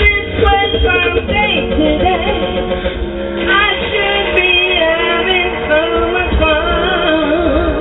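A woman singing lead vocals into a microphone, her voice wavering in vibrato on held notes, over a backing track with a heavy bass line.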